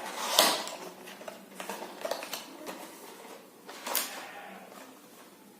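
Earphone packaging being opened and handled: rustling with sharp clicks and knocks, the loudest about half a second in and again near four seconds.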